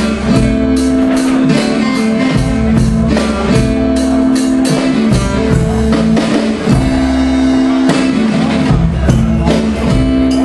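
Acoustic guitar and drum kit playing a live blues-rock groove together, with a steady drum beat under held guitar notes.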